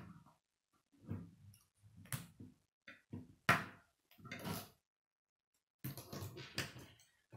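Plastic K'nex rods and connectors knocking and rattling as the large model is lifted, tilted and set back on a wooden table: a string of separate knocks and clatters, roughly one a second, with a denser cluster near the end.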